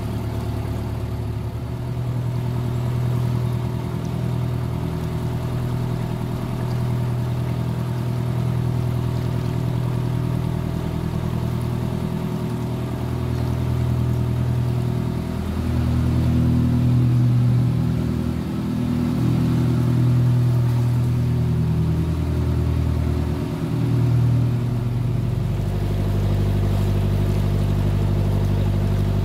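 A narrowboat's engine running steadily as the boat cruises, a low hum whose note wavers through the middle and settles into a fuller, steadier tone about 25 seconds in.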